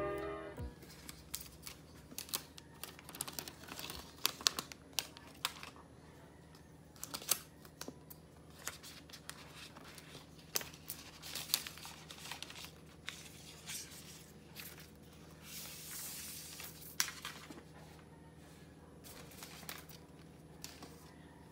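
Faint handling sounds of unboxing an iPad: scattered light taps, clicks and rustles of the cardboard box, its paper insert and the tablet being lifted and turned in the hands, with a longer rustle about three-quarters of the way through.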